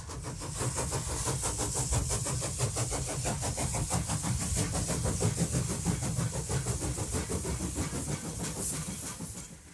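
A train running: a fast, steady rhythm with hiss, fading out near the end.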